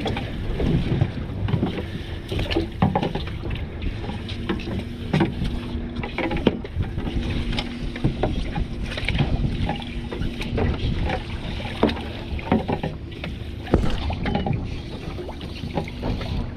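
Small boat afloat: steady wind and water noise with scattered knocks and clatter of gear on the deck, and a faint steady low hum through the middle.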